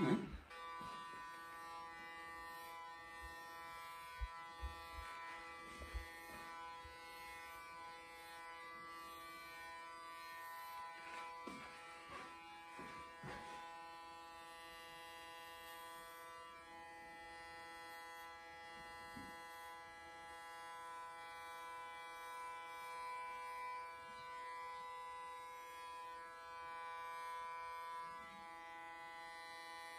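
Electric hair clippers running with a steady buzz as they shave close-cropped hair from a head, with a few faint knocks along the way.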